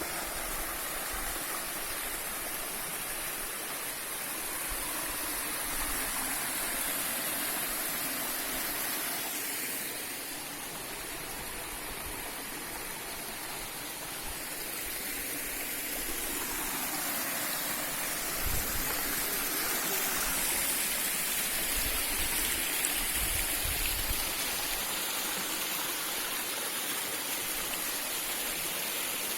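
Steady rush of water from a mountain stream and its small waterfalls, an even hiss throughout. A few brief low thumps come in past the middle.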